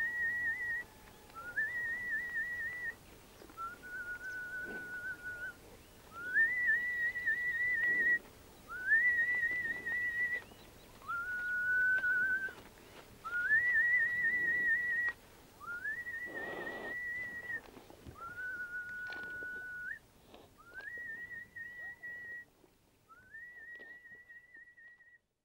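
A person whistling a slow tune of long notes, each sliding up into a held, wavering high note, with a lower, flatter note about every third. It grows quieter towards the end.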